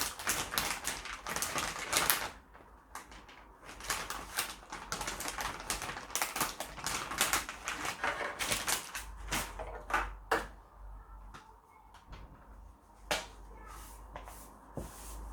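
A wet wipe rubbed quickly back and forth along a dusty floppy drive ribbon cable, a rapid scratchy rubbing in runs of short strokes, with a few sharper clicks later on.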